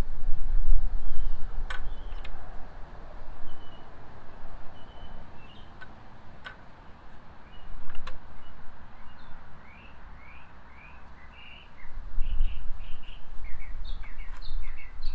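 Small birds chirping in short repeated calls, thin at first and then coming thick and fast over the last few seconds, over a steady low rumble. A few sharp clicks stand out, one near the start and two more around the middle.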